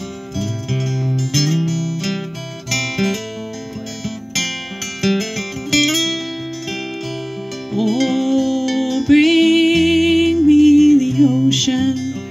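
Acoustic guitars strumming an instrumental passage of a folk song, with a held, wavering sung note about two-thirds of the way through.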